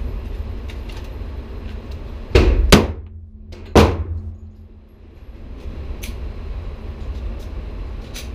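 Three pistol shots from a Metro Arms 1911 Commander, each echoing off the walls of an indoor range: two in quick succession about two and a half seconds in, then a third about a second later. Fainter single shots follow a few seconds after.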